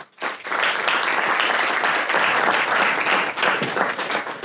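Audience applauding, building up quickly at the start, holding steady, then beginning to die away near the end.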